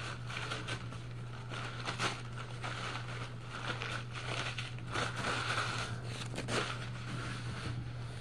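A brown paper towel crinkling and rustling as it is handled and crumpled, in irregular bursts with small clicks, over a steady low electrical hum.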